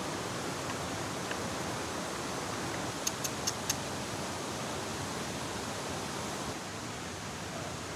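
Steady rushing noise, with four quick sharp clicks about three seconds in.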